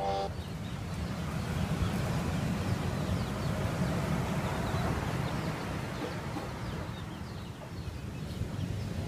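Chicken clucking faintly now and then over a steady low rumbling background.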